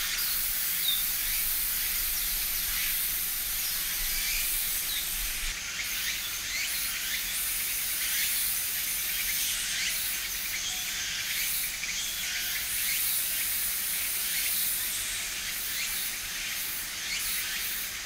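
Steady, dense high-pitched hiss of natural outdoor background sound, with a few faint short chirps scattered through it.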